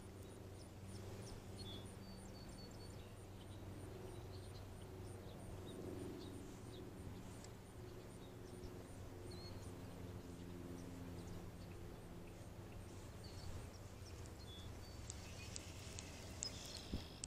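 Faint outdoor ambience: a low steady hum with a few small high chirps, and some clicks and rustles near the end.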